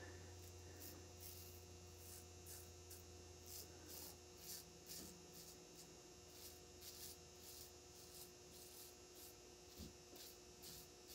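Faint, quick scraping strokes of a Merkur 38C double-edge safety razor, fitted with an Astra blade, cutting through lathered stubble on the cheek, about two or three strokes a second and fainter in the second half. A low steady hum runs underneath.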